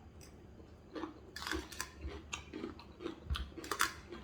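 A person chewing a mouthful of food close to the microphone: irregular short smacks and crunches starting about a second in.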